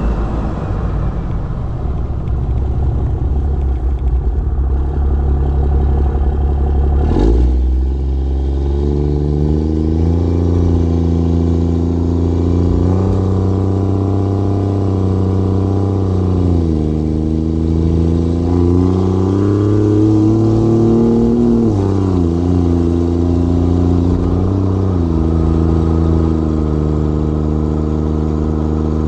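6.7 L Cummins turbo-diesel inline-six of a Ram 2500 accelerating, heard at the tailpipe through a 5-inch exhaust with a 7-inch tip. After a single knock about seven seconds in, the engine note climbs, falls back at a gear change, climbs again and settles at a steady cruise after a second shift.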